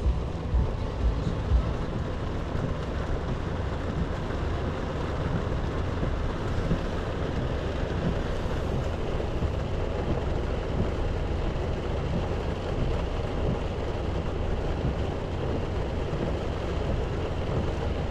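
Steady wind buffeting the microphone outdoors: a continuous low rushing rumble with no distinct events.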